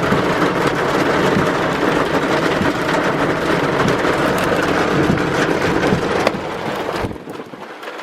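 Torrential rain pouring down in a dense, loud hiss, full of sharp drop impacts. It drops away abruptly about seven seconds in.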